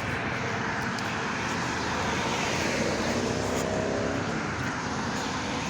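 Road traffic going by, a steady rush of tyres and engines with a vehicle's engine hum that shifts in pitch through the middle as it passes.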